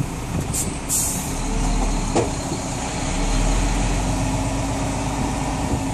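Vehicle engine running at low speed, heard from inside the cab, with two short hisses about a second in.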